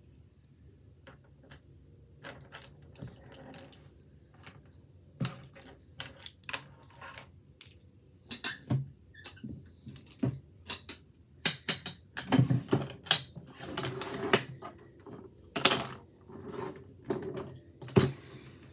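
Markers drawing on a canvas: irregular clicks, taps and scratchy strokes, busiest about twelve to fifteen seconds in.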